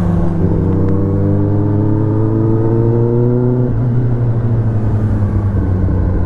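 Kawasaki ZX-10R's inline-four engine heard from on board the moving bike: it pulls in gear with its note rising steadily for about three seconds, then eases off as the throttle is rolled back.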